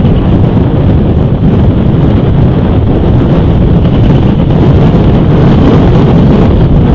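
Strong wind blasting the camera's microphone: a loud, steady low rumble.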